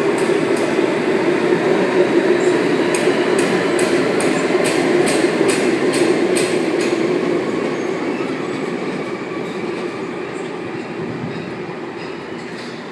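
Sydney Trains Waratah electric multiple-unit train departing the platform: a steady rumble and hum with a run of sharp clicks from the wheels in the middle seconds, fading as the train draws away.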